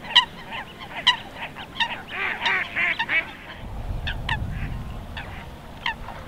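Geese honking repeatedly, short calls coming every half second or so with a burst of overlapping honks about two seconds in. A low rumble comes in from a little before the middle.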